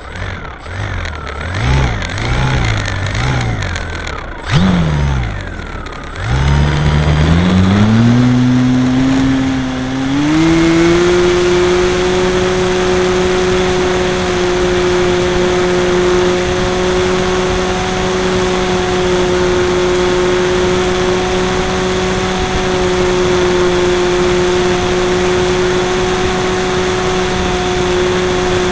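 Radio-controlled model airplane's motor and propeller, heard up close from a camera mounted on the model: several short throttle blips rising and falling in pitch, then the pitch climbs in steps over about five seconds to a steady high drone at flying throttle.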